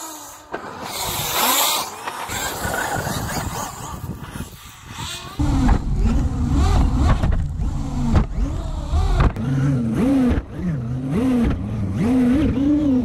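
Radio-controlled car's motor being driven hard: a rushing noise at first, then from about five seconds in a motor pitch that rises and falls over and over as the throttle is worked, over a low rumble.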